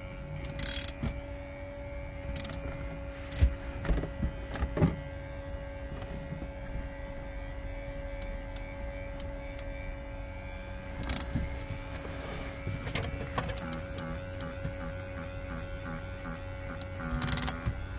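A cord-type windshield removal tool pulling its cutting line through the windshield's urethane bead: a steady motor hum with scattered clicks and a few short scraping hisses as the line saws through.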